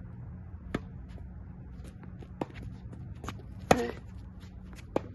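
Tennis rally: a ball is struck by racket strings and bounces on a hard court, a handful of sharp pops about a second or more apart. The loudest is a forehand hit close by, near the end.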